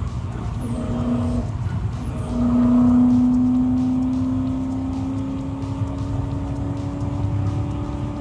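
V8 engine of a homemade Ford GT40 replica pulling hard on track, heard from inside the cabin over a steady low rumble. A short burst of engine note about a second in, then from about two seconds the note holds and climbs slowly and steadily as the car accelerates.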